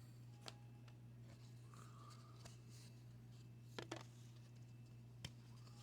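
Near silence in a small room: a steady low hum with a few faint short clicks, one about half a second in, a couple near four seconds and one more past five seconds.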